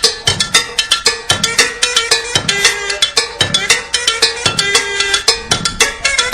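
Cuban dance music with a steady beat: cowbell and hand-percussion strikes several times a second over a low thump about once a second.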